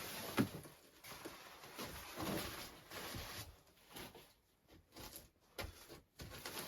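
Irregular rustling and soft handling knocks, with one sharper knock about half a second in; the sound thins out to a few faint scuffs past the middle.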